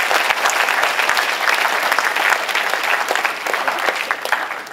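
A large audience applauding, many hands clapping together, the applause tapering off near the end.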